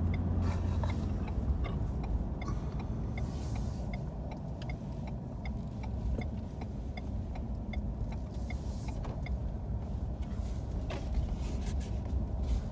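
Four-wheel-drive vehicle driving, heard from inside the cabin: a steady low road and engine rumble, with a faint regular ticking about three times a second.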